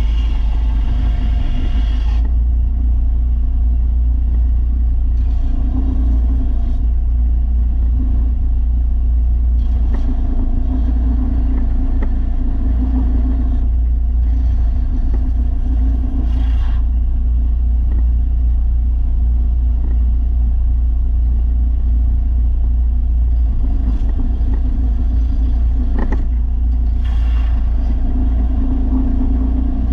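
Belt sander running steadily with a low motor drone, while a steel lawn mower blade is ground against its 300-grit belt in stretches of a few seconds, each adding a grinding hiss over the drone.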